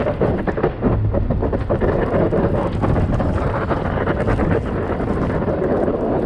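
Strong blizzard wind buffeting the microphone in rapid, irregular gusts.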